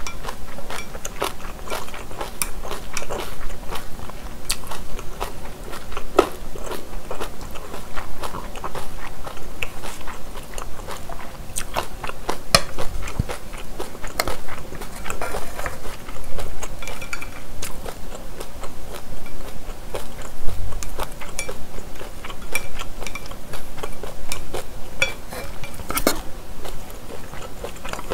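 Close-miked chewing of japchae, soft glass noodles with stir-fried vegetables, a steady run of wet mouth sounds with many small clicks and smacks.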